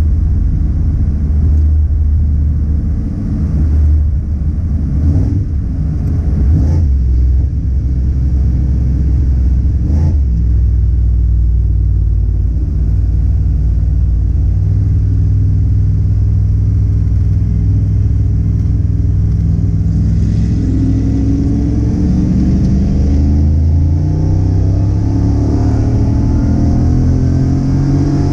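Car engine cruising with a low, steady rumble, then from about twenty seconds in accelerating through several gears, the pitch climbing and dropping back with each shift.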